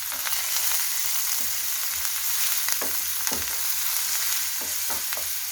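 Chopped onion, green chilli and cashews sizzling in hot oil in a kadai, a steady frying hiss, while being stirred, with several short scrapes against the pan.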